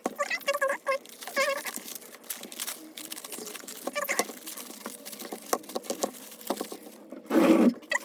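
Plastic packaging of a trading-card mystery pack being handled and torn open: steady crinkling and crackling, with several short high squeaks and a louder rustle near the end.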